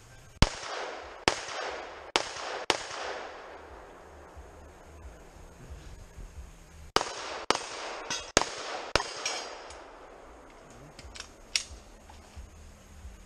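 Pistol shots in two quick strings of four, about four seconds apart, each crack followed by a short echo. A few fainter cracks follow near the end.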